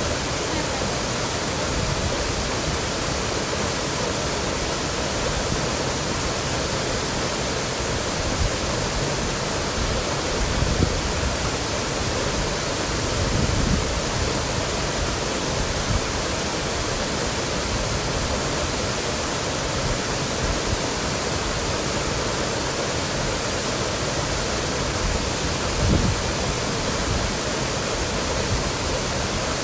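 Waterfall falling close by: a steady, dense rush of water. A few brief low thumps rise out of it, the clearest about a third of the way in and near the end.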